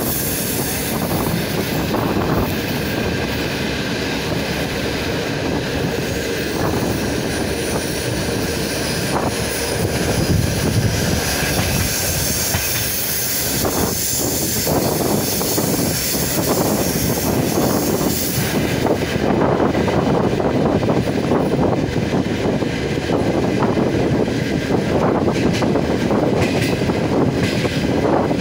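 Electric commuter train running on the rails, heard from inside the carriage: a steady rumble with the clatter of wheels over rail joints. The high hiss drops away about two-thirds of the way through.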